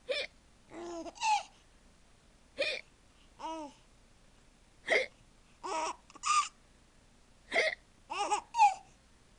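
A mother's fake hiccups, four short sharp 'hic' sounds about every two and a half seconds, each answered by a baby's short bursts of laughter.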